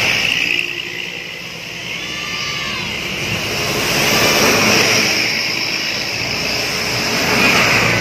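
Large tour bus passing close on a wet road: engine noise and tyre hiss swell to a peak about halfway through and ease off.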